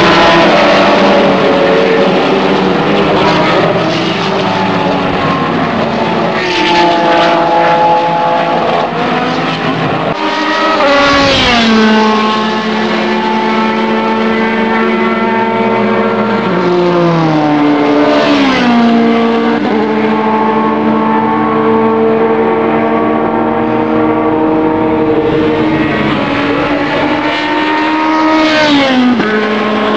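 Several circuit racing cars' engines running hard at high revs, their pitch dropping sharply a few times.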